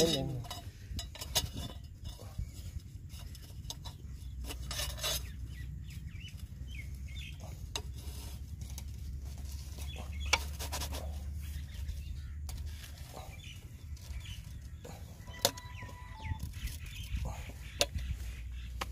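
Scattered light metallic taps and clicks from handling and working a slotted steel tube-well filter pipe at its welded joint, over a steady low rumble.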